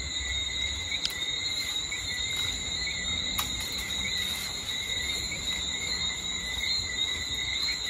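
Steady insect chorus, a continuous high-pitched trill, with a couple of faint sharp ticks about one and three and a half seconds in.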